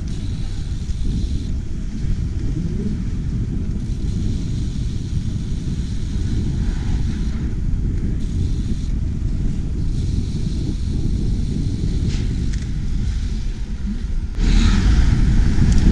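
Wind noise on a chest-mounted GoPro camera's microphone while riding a bicycle along city streets, with the hum of traffic mixed in: a steady low noise that jumps suddenly louder about fourteen and a half seconds in.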